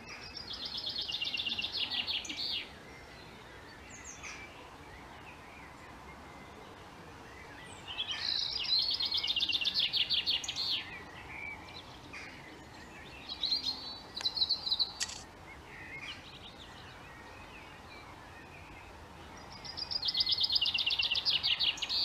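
Male common chaffinch singing the same song three times, each a fast trill of two to three seconds that starts high and falls. Other birds chirp faintly in the background.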